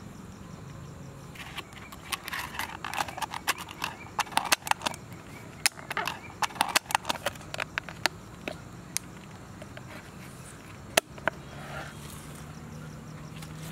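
Snap-on plastic lid being pressed onto a round plastic takeaway container: a run of sharp clicks and crackles, thickest between about two and nine seconds in, with one louder snap near eleven seconds.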